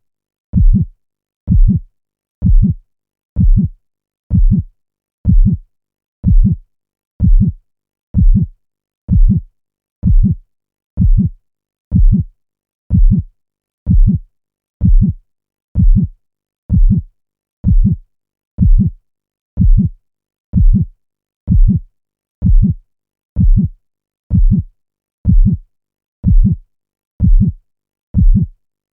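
Looped heartbeat sound effect: a deep, even double thump (lub-dub) about once a second, with silence between beats.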